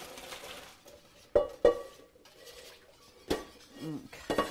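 Metal pots and utensils clanking in a kitchen: two sharp ringing clanks about a second and a half in, then more knocks and a ringing clatter near the end. At the start, a short hiss of cooked noodles and water draining into a colander at the sink.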